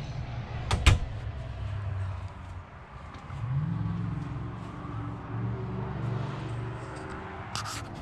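Low steady hum of a running vehicle engine, rising in pitch about three and a half seconds in and then holding, with two sharp knocks about a second in and a few light clicks near the end.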